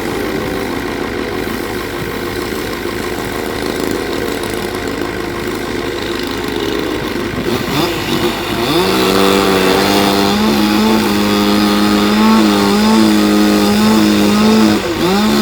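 Chainsaw engine running unevenly, then from about halfway revved up and held at high speed, with a brief drop in revs near the end.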